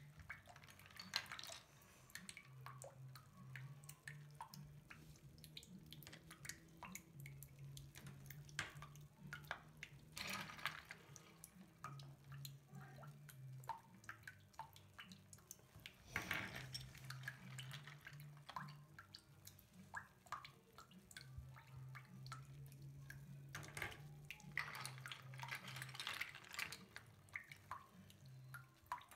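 Faint sloshing and dripping of hands moving in a sink full of soapy water, with small splashes and plastic toy figurines knocking as they are fished out. A few longer splashes stand out, about ten, sixteen and twenty-five seconds in.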